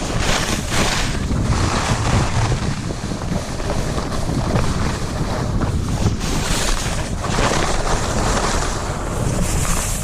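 Wind rushing over the microphone during a downhill ski descent, with the hiss and scrape of skis on snow surging now and then.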